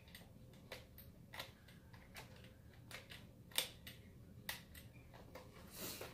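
Faint, irregular plastic clicks and taps from a hard plastic L.O.L. Surprise Under Wraps toy capsule being turned and fingered in the hands, the sharpest click a little past halfway.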